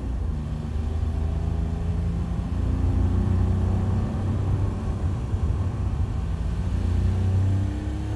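SEAT Mii small hatchback driving along a road at steady speed: low engine and road rumble.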